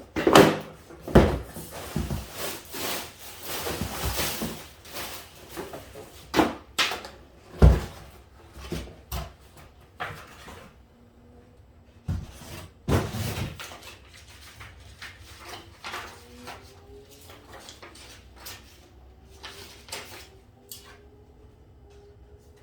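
Parts and packaging of a fork spring kit being handled and unpacked: a run of knocks and clatter over the first half or so, the loudest about a second and nearly eight seconds in, then quieter handling with a few scattered clicks.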